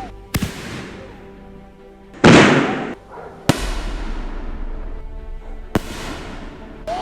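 Fireworks going off: four sharp bangs with trailing crackle and hiss, the loudest about two seconds in, over quiet background music.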